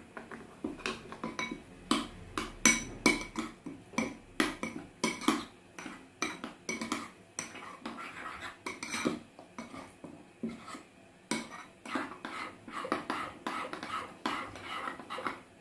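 A spoon clinking and scraping against a bowl as a thick chili-paste sauce is stirred: a rapid, irregular run of clinks with scrapes between them.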